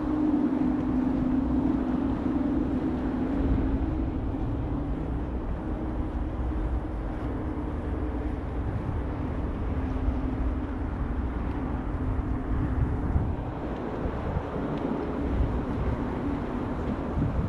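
Steady engine hum and low rumble of a passing vehicle, with a rising tone about three seconds in.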